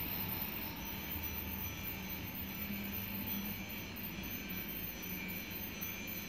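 Toy train set running: a steady whir with faint held tones over it.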